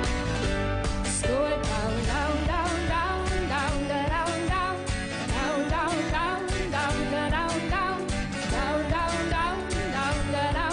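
Pop-rock song with a wavering lead melody line over a full, steady backing band.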